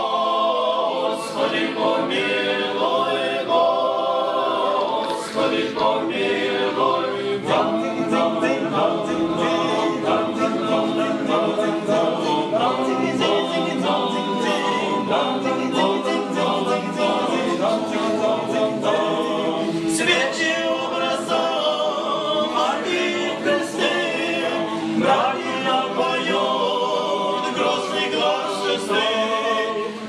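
Small male choir of Orthodox monks singing a cappella in several parts, a steady unbroken stretch of harmonised song.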